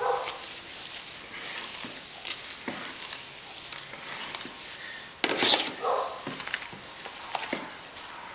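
A spoon stirring a thick mash of grain and hot water in a cooler mash tun: soft scraping stirring sounds with scattered light clicks, and one louder knock about five seconds in.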